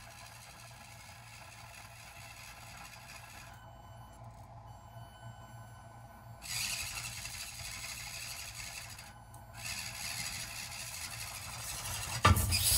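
Axial SCX24 mini crawler's small electric motor and gears whirring faintly as it strains up a steep board, cutting out twice; near the end a loud knock as the truck slides off the board and drops onto the floor.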